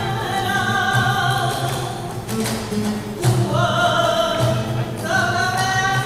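Live flamenco: a woman sings in long, held, wavering notes over a flamenco guitar, with hand clapping (palmas) marking the rhythm.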